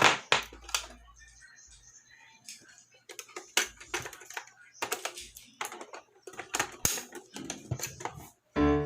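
Irregular clicks and knocks from handling a mini household sewing machine, with no steady running between them. Piano music comes in near the end.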